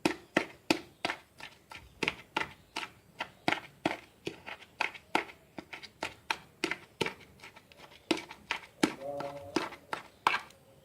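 Hands pressing and flattening a rice-stuffed lamb intestine casing, making a quick run of sharp, wet clicks and squishes, about two to three a second.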